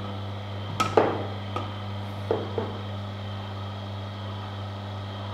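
Oscar DA1000 slow juicer's motor running with a steady low hum as its grinding head crushes Siamese cassia leaves. A short knock comes about a second in, and two lighter ones around two and a half seconds in.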